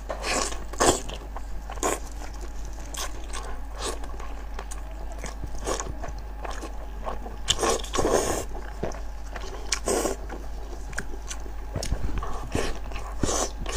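Close-up wet chewing and mouth smacking on sauced sheep's-head meat. Gloved hands squelch as they tear the meat apart. The clicks and smacks come at an irregular pace.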